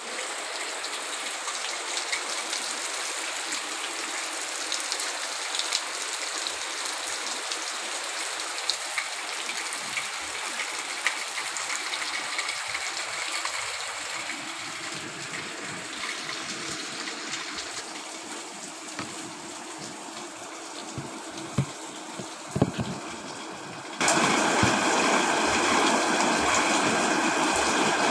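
Steady rain with a running forest stream, an even hiss of water with a few sharp drips or knocks. About 24 seconds in it jumps suddenly to louder, heavier rain.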